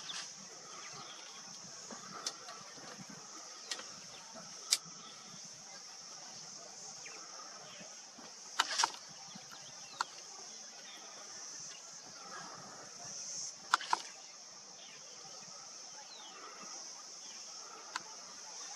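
Bush ambience: a steady high-pitched insect drone, with a handful of short, sharp clicks scattered through it, the loudest about five, nine and fourteen seconds in.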